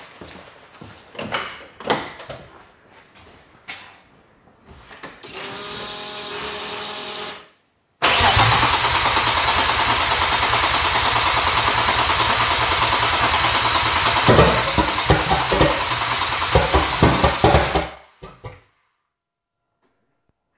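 Turbocharged BMW M50 straight-six turning over on the starter for about ten seconds without catching; in its last few seconds the cranking goes uneven with separate knocks, the engine kicking back against the starter. It fails to fire under the new MS3X Megasquirt in sequential mode. Before the cranking, a few clicks and a short whine.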